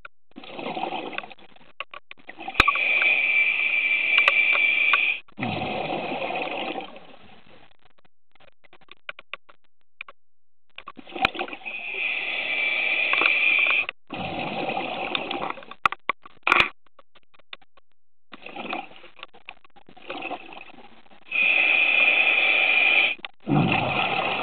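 Scuba diver breathing through a regulator underwater: each breath is a hiss of inhaled air through the regulator, followed at once by a rush of exhaled bubbles. Three breaths, roughly nine seconds apart.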